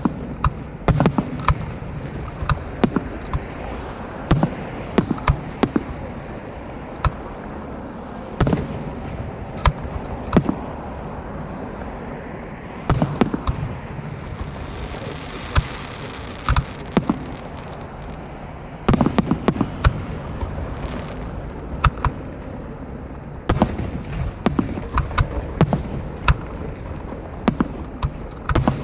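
Fireworks display: aerial shells bursting one after another in sharp booms at irregular intervals, several a second at times, over a continuous rumble of further bursts and echoes.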